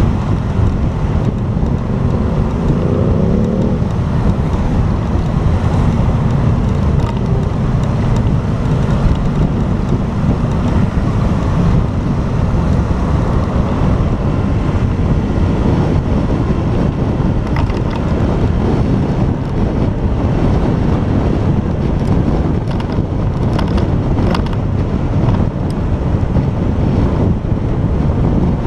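Motorcycle on the move: heavy wind rush on the camera microphone over the engine's running note. The engine climbs briefly in pitch about two to four seconds in.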